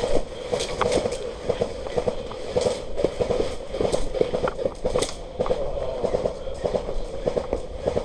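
Airsoft guns firing: a rapid, irregular string of sharp pops and clicks from several shooters across the field.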